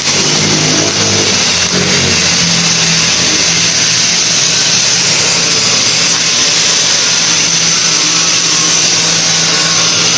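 An engine running, its pitch climbing over the first two or three seconds and then holding steady, over a steady loud hiss.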